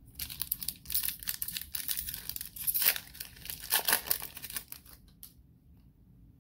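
Foil wrapper of a 2020 Panini Playoff football card pack being torn open and crinkled by hand. The dense crackle lasts about five seconds, is loudest near the middle, then stops, leaving a few faint clicks as the cards come out.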